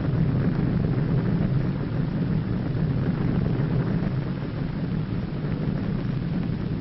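Underwater nuclear explosion sound effect: a steady, deep rumble of noise, easing slightly near the end.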